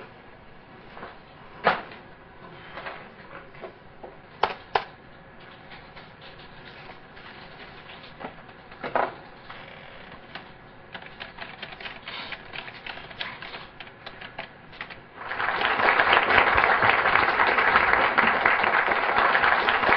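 A few isolated sharp knocks, then scattered hand claps that grow denser until a whole audience breaks into loud, steady applause about fifteen seconds in.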